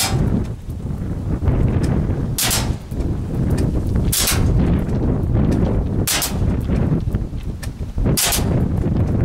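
DE M56A spring-powered pump-action airsoft shotgun firing three-BB shots, five sharp reports about two seconds apart. Loud wind rumble on the microphone throughout.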